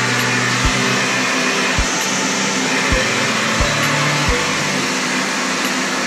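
Philips PowerPro Compact FC9352/01 1800-watt bagless cyclonic canister vacuum cleaner running steadily with an even rushing noise, not that loud for a vacuum.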